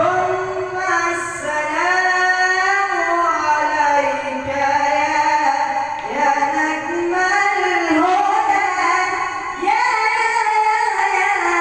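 A man singing an Islamic ibtihal (devotional supplication) in a high voice, holding long melismatic notes that waver and glide between pitches, with short breaks between phrases.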